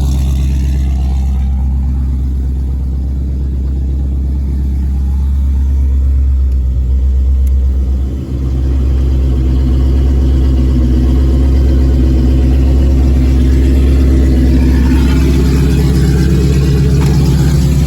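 Cammed 5.2-litre Magnum V8 of a 1998 Jeep Grand Cherokee running at idle through its exhaust. About eight seconds in the sound dips briefly, then comes back louder and fuller.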